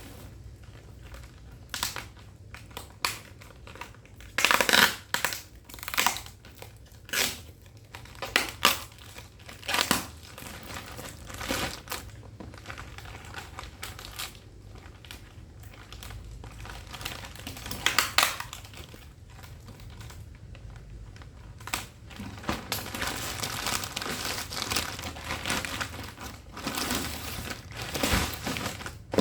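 Packaging crinkling and rustling as a boxed overlock sewing machine is unpacked, with sharp crackles, the loudest about five and eighteen seconds in, and a denser continuous rustle near the end.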